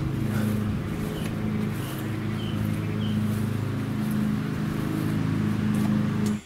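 Steady low mechanical hum with a few overtones, from a motor or engine running close by, swelling slightly in and out. A few faint short chirps sound about two and three seconds in.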